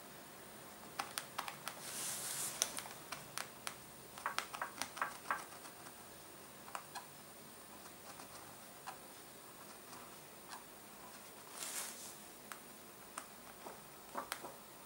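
Metal embossing stylus working thin embossing foil: scattered sharp clicks and taps, with two brief scratchy swishes, one about two seconds in and one near twelve seconds.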